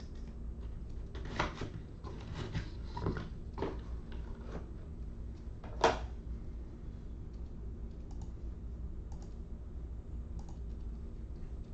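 Scattered clicks and taps like typing on a computer keyboard, a cluster of them over a couple of seconds, then one sharp louder click, then a few faint ones, over a low steady hum.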